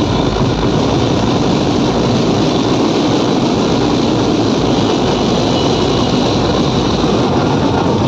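Loud street band playing for a dancing crowd: large drums and a horn-loudspeaker sound system blur into one steady, dense din with no clear beats or pauses.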